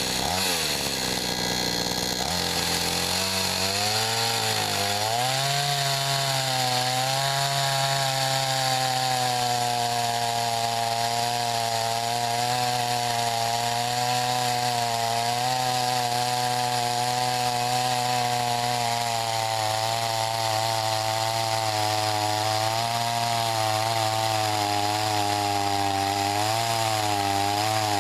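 Gas chainsaw cutting through a pecan log. The engine revs unevenly at first, then drops in pitch about two seconds in as it loads down in the cut, and holds a steady, slightly wavering note with the chain's cutting noise over it.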